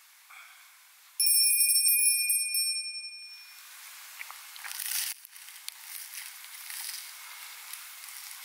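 A single bright metallic ring, struck about a second in and fading away over about two seconds. After it, soft crackling and rustling of a crusty bread roll being handled and broken open.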